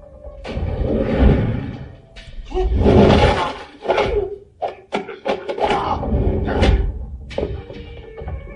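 Film fight-scene sound: several heavy, swishing blows and hard hits in quick succession, with a cluster of short sharp impacts in the middle and grunting from the fighters.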